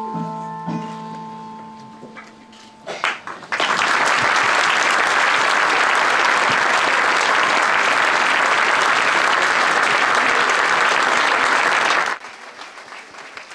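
The last notes of a musical performance ringing out and fading, then an audience applauding for about eight seconds. The applause cuts off suddenly.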